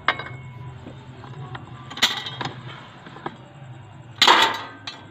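Hand-lever shear cutting sheet steel: metal clanks and creaks from the lever and blades, with the loudest sharp metallic bites about 2 seconds and 4 seconds in. A faint low steady hum sits under them.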